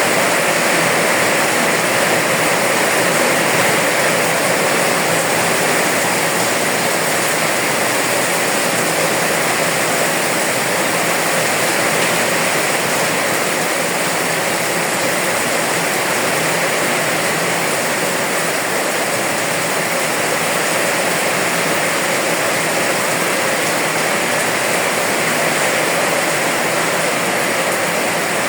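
Steady rainfall, an even hiss of falling rain with no let-up or change in strength.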